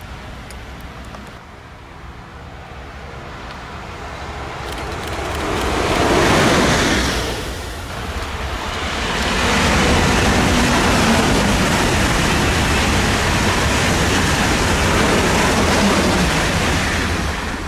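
Deutsche Bahn ICE high-speed train passing at speed: a rush of air and wheel noise that swells, dips briefly, then holds loud and steady for several seconds before falling away near the end.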